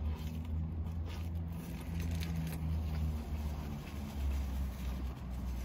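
Chewing a bite of crispy fried chicken sandwich, with a few faint crunches and a napkin rustling, over a steady low hum inside a car.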